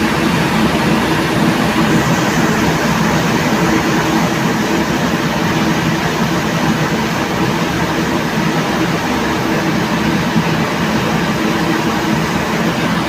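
A ferry's engine droning as a steady, loud low rumble, with an even rushing noise over it.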